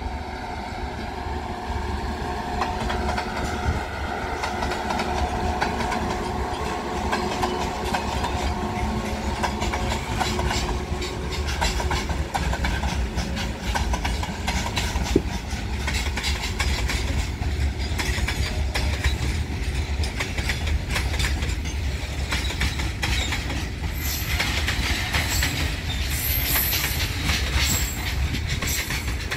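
Freight train passing at speed. The locomotive's steady hum comes first, then a long rake of covered goods wagons rolls by, its wheels clattering rhythmically over the rail joints, with some high-pitched squealing near the end.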